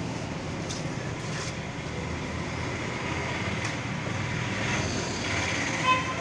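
Steady low background rumble, with a few faint knocks as a long knife slices a small shark on a wooden chopping block. A short, loud high-pitched beep comes near the end.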